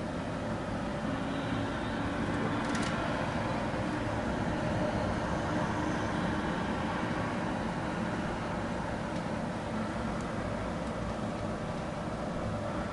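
Steady background hum of distant traffic, with a brief click about three seconds in.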